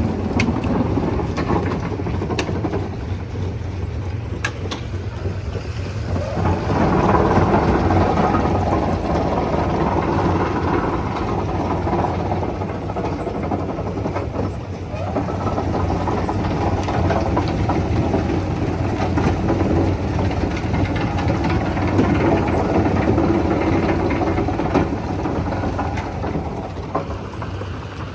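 Stone crusher machinery running with a steady low engine drone. The din grows louder and fuller about six seconds in and again about fifteen seconds in, with a few sharp clicks near the start.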